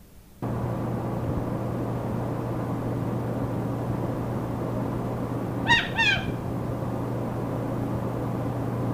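Steady static hiss with a low hum from an old recording, then two short calls from a Quaker (monk) parakeet close together about six seconds in, each dipping slightly in pitch.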